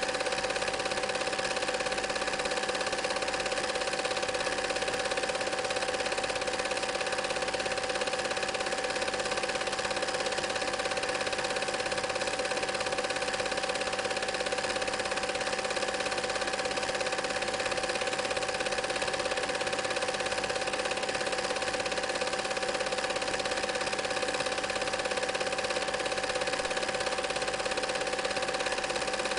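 Film projector mechanism running steadily, a continuous whirring clatter of its gears and film-pulling claw with a few steady hum tones, unchanging throughout.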